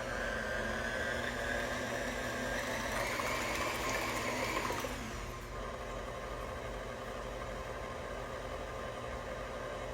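Electric mixer running, mixing sifted flour into pumpkin cake batter. Its whine rises slightly in pitch, then drops away about five seconds in, leaving a softer steady hum.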